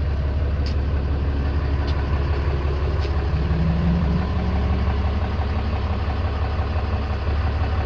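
Ram 3500's 6.7-litre Cummins inline-six turbodiesel idling steadily, heard close to the tailpipe.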